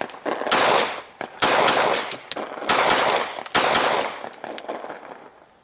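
Glock 17 9 mm pistol firing a slow string of shots, about one a second, each trailing off in a short echo, with fainter clicks between the shots.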